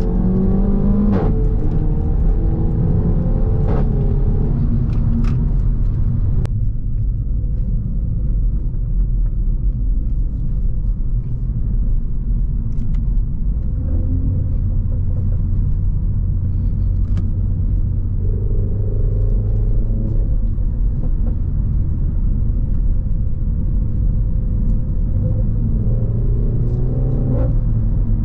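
Renault Mégane RS 280's turbocharged 1.8-litre four-cylinder running through a catless exhaust while driving: a deep, continuous rumble whose revs rise about a second in and again near the end, with steadier cruising between. A few brief sharp cracks sound over it.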